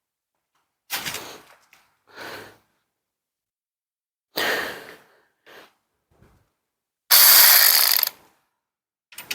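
VTEK V116-1 16.8 V cordless ratchet wrench run in short bursts to drive in a battery hold-down strap bolt. The loudest burst, about a second long, comes near the end.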